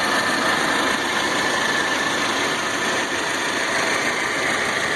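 A car engine idling steadily: an even running noise with a faint, thin high whine.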